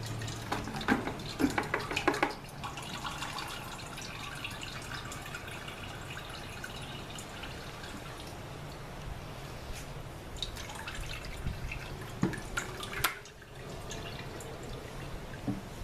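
Soapy water sloshing and splashing in a bucket as a hand plunger washer is worked up and down through a load of socks, with a burst of louder splashes a second or two in and a few more near the end.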